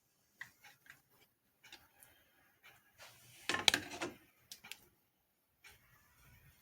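Kitchenware being handled: scattered light clicks and knocks, with one louder clatter about three and a half seconds in.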